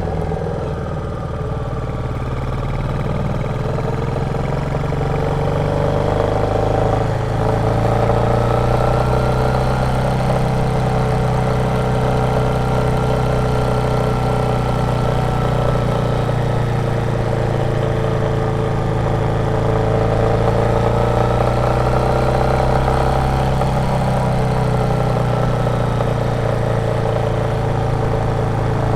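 Royal Enfield Meteor 350's single-cylinder engine thumping along under way, its revs slowly rising and falling, with a brief dip about seven seconds in.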